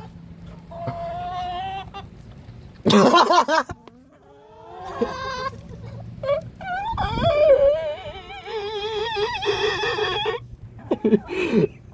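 Chickens giving long, drawn-out wavering calls, several overlapping, with a loud one about three seconds in.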